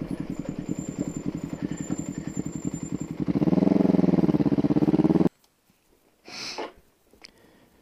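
Cruiser motorcycle engine running as the bike rolls along, a steady low pulsing. About three seconds in it gets louder, its pitch rising and then falling as the bike pulls away under throttle. It cuts off suddenly a little after five seconds.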